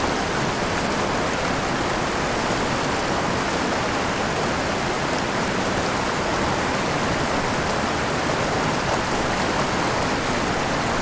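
Shallow, fast river rushing and splashing over rocks in a riffle: a steady, even rush of water.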